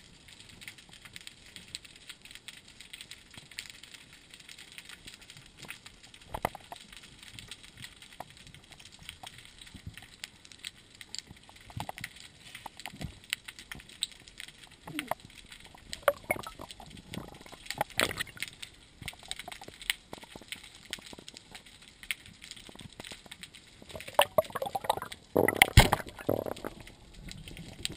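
Underwater ambience with scattered clicks and knocks. About three-quarters of the way through comes a sharp, loud whack as the speargun fires, the loudest sound.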